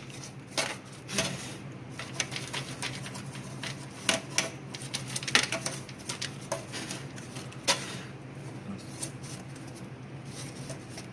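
Irregular clicks and knocks of a motherboard and computer case parts being handled and fitted, over a steady low hum.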